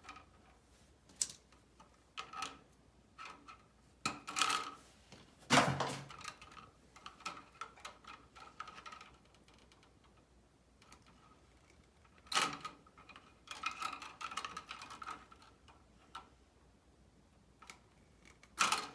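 Pliers clicking and scraping on 14-gauge copper wire as the hot wires are prepared and bent into loops for an outlet's screw terminals. Scattered clicks and short scrapes, the loudest about five and a half seconds in.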